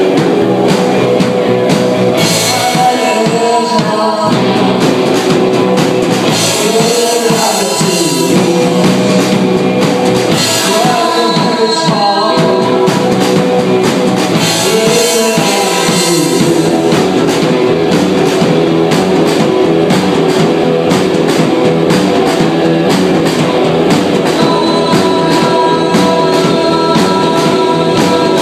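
A rock band playing live: electric guitar, bass guitar and drums, with singing over the first half before the instruments carry on alone.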